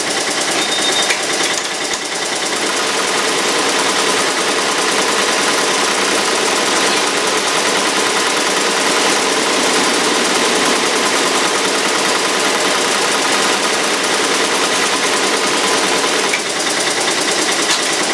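Multi-needle commercial embroidery machine stitching at speed, a loud, fast, steady rattle of the needle bar. It is sewing the black outline detail, the last colour of the design.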